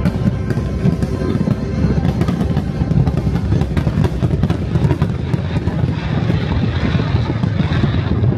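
Fireworks going off in rapid succession, with dense bangs and crackling, over music playing throughout. The crackling thickens about six seconds in.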